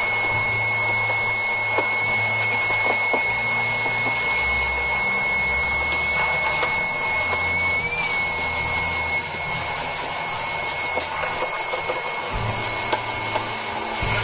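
Canister shop vacuum running steadily while vacuuming carpet, with a constant high whine and a few small clicks.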